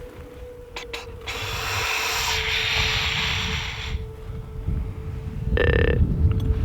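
Whitetail rattling antlers clashed and ground together to call in rutting bucks: a couple of clicks, then a grinding rattle lasting about three seconds.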